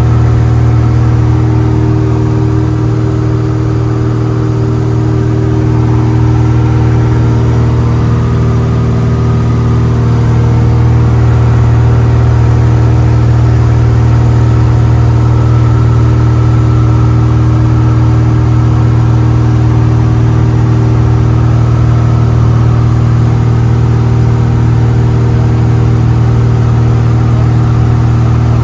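1951 Cessna 170A's six-cylinder Continental engine and propeller running steadily at cruise, heard as a loud, even drone inside the cabin. The drone dips a little a few seconds in and swells slightly again about ten seconds in.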